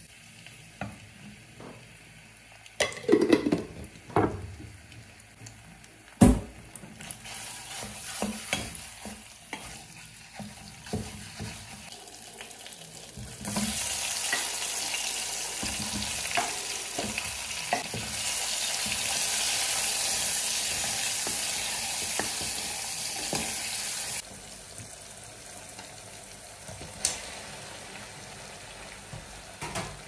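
A wooden spoon knocks and scrapes against a cooking pot as tomato paste goes in, with a few loud knocks. About halfway through, tomatoes start sizzling loudly and steadily in the hot pot, and the sizzle cuts off abruptly.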